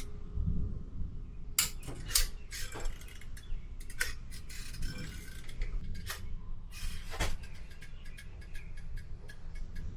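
Metal objects being handled: a series of clinks, knocks and short scrapes, busiest in the first seven seconds, then a few lighter ticks.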